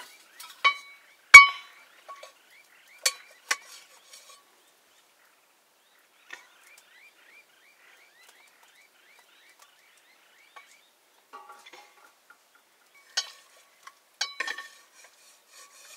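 Metal cooking vessels and utensils clinking and ringing: a handful of sharp clinks, the loudest about a second and a half in, and another cluster near the end. In between, a faint run of short chirps repeats about three times a second.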